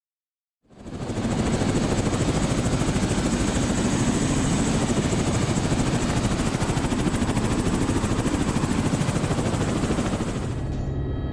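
Helicopter in flight, its rotor blades chopping with a steady, rapid beat over the engine noise; it cuts in abruptly about a second in and stays loud and even.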